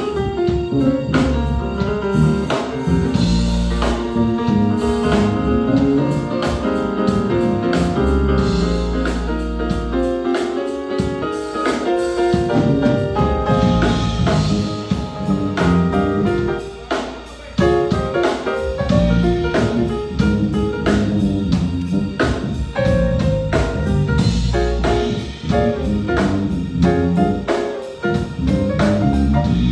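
Live band playing jazz: a drum kit keeping a steady beat under keyboards and a deep bass line.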